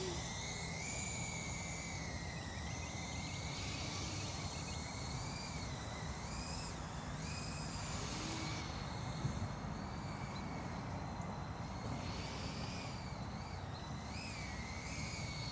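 FPV quadcopter's brushless motors whining, the pitch rising and falling as the throttle changes, over a low steady background hiss.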